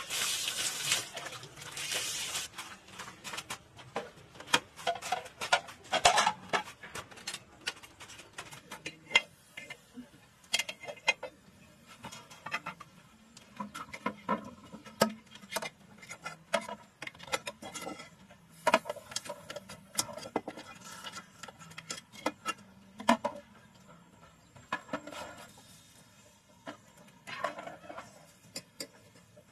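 Water splashing for the first couple of seconds, then a long run of irregular clinks and knocks: a metal slotted spoon and ladle tapping and scraping against a metal pot as boiled eggs and potatoes are lifted out.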